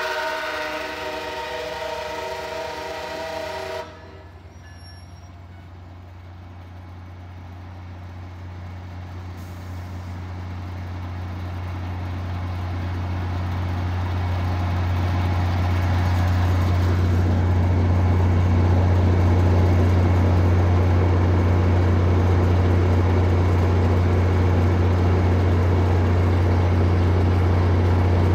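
MARC commuter train's horn sounding a chord, cutting off sharply about four seconds in. Then the diesel locomotive grows louder as the train approaches and settles into a steady low engine hum with rail and wheel noise.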